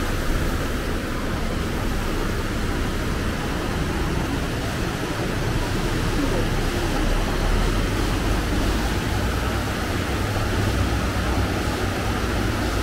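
Water from a small canal weir running over it in a steady, even rush.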